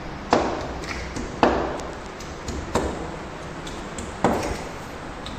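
Hammer knocking wall plugs into drilled holes in a wall: four sharp strikes, irregularly spaced about a second or so apart, each with a short ringing tail.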